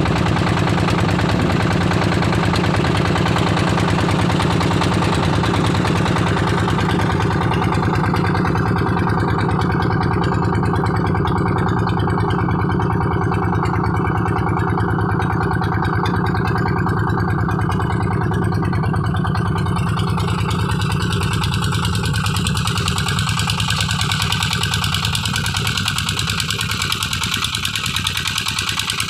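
A river boat's engine running steadily, driving a long propeller shaft through a belt and pulley as the boat moves across the water.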